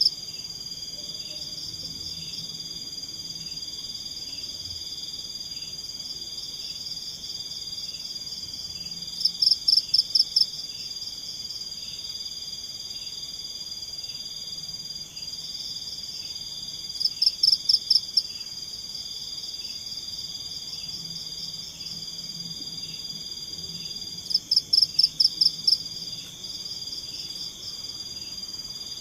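Night-time tropical forest chorus of insects and frogs: a steady high-pitched trill. Three times, about every seven or eight seconds, a louder call of quick even pulses cuts in, each lasting about a second.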